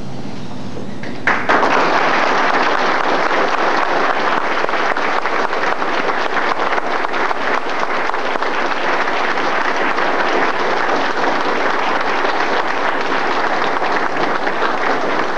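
An audience claps and applauds. The applause breaks out suddenly about a second in, keeps up steadily, and eases a little near the end.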